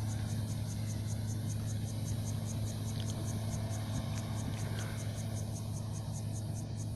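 Claas Lexion 450 combine harvester running steadily with an even low engine drone. Over it is a fast, high-pitched regular ticking, about five ticks a second.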